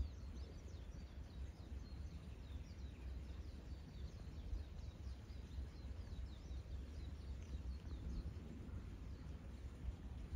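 Small bird chirping over and over in short, high, falling notes, a few a second, stopping near the end, over a low steady outdoor rumble.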